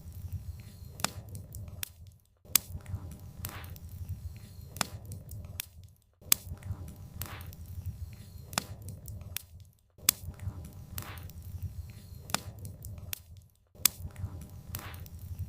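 Wood fire burning with a low rumble and frequent sharp crackles and pops of burning firewood. The sound cuts out briefly about every four seconds and starts again, as a short repeating loop.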